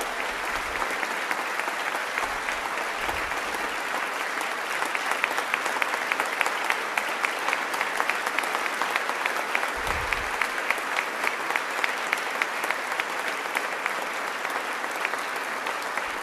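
A large audience applauding steadily. Individual claps stand out more sharply from about five seconds in.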